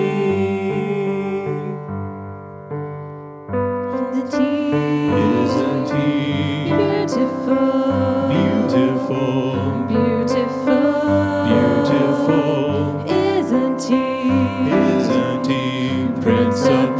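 Church worship music: keyboard or piano with singing. It thins out and quietens about two seconds in, then comes back in fully with the singing about three and a half seconds in.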